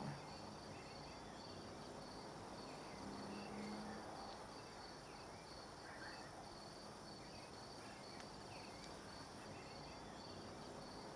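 Faint night ambience of insects chirping: a steady, finely pulsing high trill over a soft background hiss.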